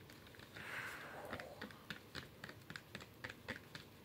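Plastic spoon stirring slime in a small plastic cup as laundry detergent is mixed in to activate it: a run of quick, irregular sticky clicks, with a short hiss about a second in.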